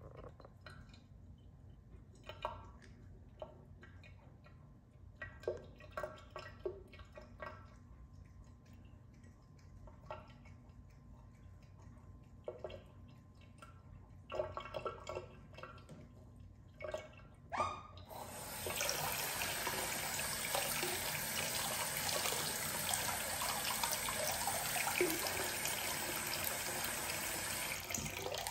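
Small splashes and drips of bath water for most of the stretch. Then, past halfway, water starts running steadily into the bathtub from the tap, as when topping up the bath, and stops near the end.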